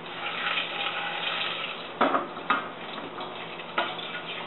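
Cumin and black mustard seeds sizzling as they fry in hot oil in a stainless-steel pot, with a spatula stirring and scraping. There are a few sharp clicks, about two, two and a half and nearly four seconds in.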